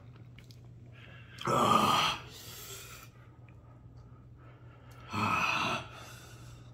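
A man blowing out two hard, breathy exhales, each under a second long and about three and a half seconds apart, as he breathes through the mouth burn from a Carolina Reaper pepper sandwich.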